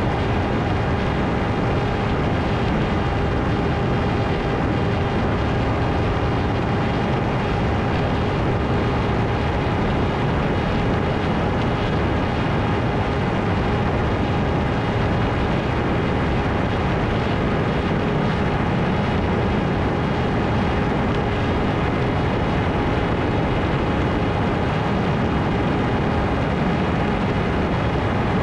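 Ritewing Hardcore 38 flying wing in flight: its electric motor and propeller hold one steady whine at constant throttle over a constant rush of wind.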